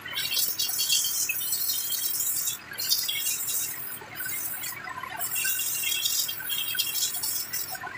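Hissing water jet from a small pressure sprayer hitting a dismantled inkjet printer mechanism. The spray cuts off briefly three times and starts again.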